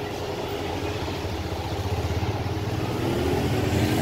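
Motor scooter and motorcycle engines running close by in slow street traffic, growing louder as they pass, with one engine's note rising near the end.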